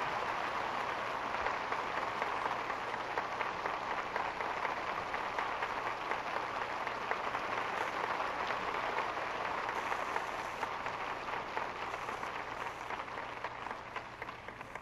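Large theatre audience applauding, many hands clapping in a dense steady wash that starts to die down near the end.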